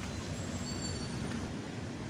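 Steady road traffic noise, tyres on a wet road.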